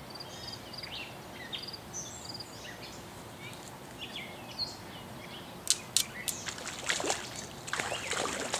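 Birds chirping and singing in short trills over a faint steady background. About six seconds in come a few sharp clicks, then a run of handling noise and rustling as a fishing rod is picked up and a hooked fish is reeled.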